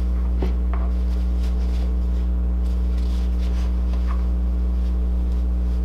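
A steady low electrical hum, with faint soft rustling of fluffy fiberfill stuffing being pulled by hand out of a cloth doll body.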